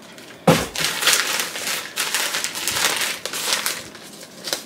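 A thump about half a second in, then crinkling and rustling of packaging handled and opened by hand, thinning out near the end.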